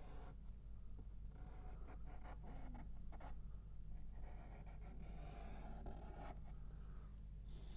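Faint scratchy strokes of a paintbrush drawing an outline in thin oil paint on canvas: several strokes of a second or two each, with a few light taps, over a steady low hum.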